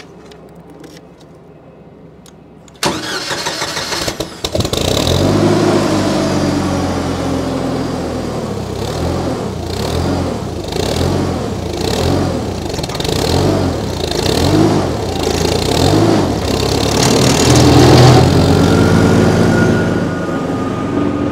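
The petrol engine of a Bandit Intimidator 12XPC drum chipper being started. The starter cranks for about a second and a half, then the engine catches and runs, its note wavering before it revs higher and louder near the end.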